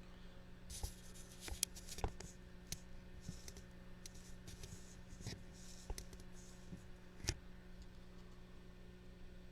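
Trading cards being handled: scattered clicks and taps with short sliding, rustling swipes, the sharpest clicks about two seconds in and again near the end, over a steady low hum.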